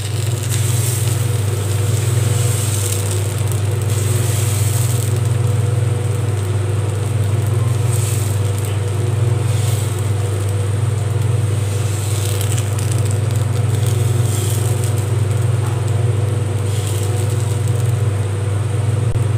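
A steady low hum, over which appam batter sizzles and crackles faintly as it cooks on a hot nonstick pan while the pan is swirled.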